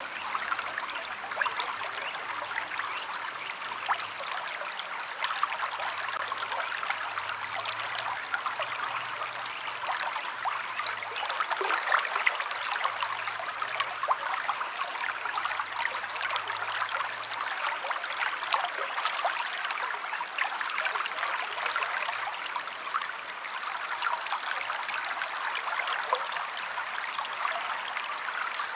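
River water flowing steadily over rocks, a continuous rushing babble crackling with many small splashes.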